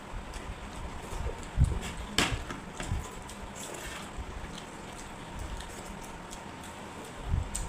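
Eating sounds from a food-eating challenge: low, uneven chewing and mouth noises with scattered short clicks and knocks.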